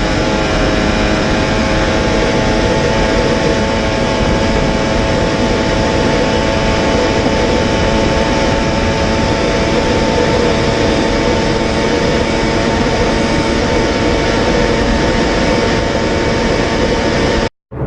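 Kawasaki H2's supercharged inline-four running flat out in sixth gear at a steady high rpm, at about 400 km/h, with a loud rush of wind over it. It holds one unchanging pitch, then cuts off abruptly near the end.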